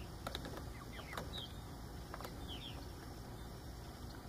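Young poultry, the pen's Bourbon Red turkeys and Jersey Giant rooster, giving short, high, faint peeps, several sliding down in pitch, scattered irregularly.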